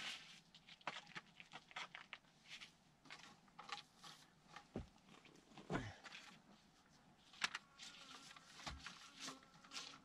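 Small metal hand shovel scraping and digging into dry soil and stones in short, irregular strokes, faint, while digging out a metal detector signal.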